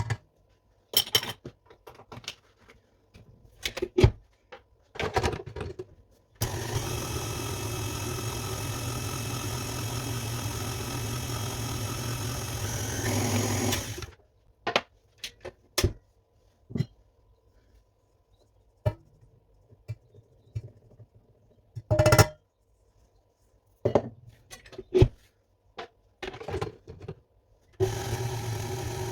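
An electric kitchen mixer runs steadily for about eight seconds, stops, and starts up again near the end. Between the runs come scattered clicks and knocks.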